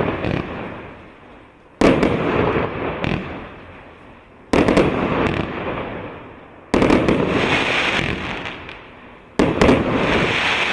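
Consumer fireworks cake (battery) firing shot after shot: four sharp bangs about two and a half seconds apart, each followed by a fading crackle and rumble of about two seconds, on the tail of an earlier shot at the start.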